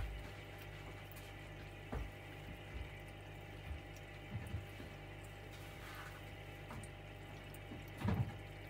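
Aquarium aeration: steady low hum of an air pump with fine bubbling from an airstone in the tank. A few soft low thumps break in, the loudest at the start and about eight seconds in.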